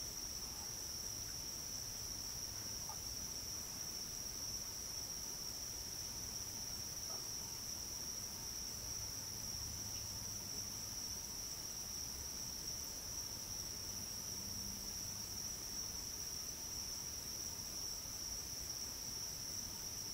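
Steady, unbroken high-pitched insect chorus, with a faint low rumble beneath it.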